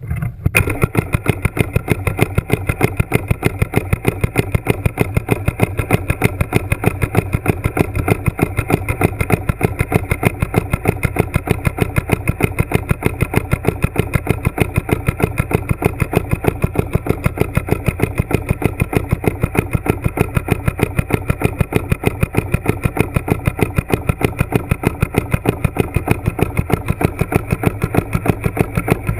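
Steady mechanical pulsing heard underwater, about five pulses a second, holding an even rate throughout.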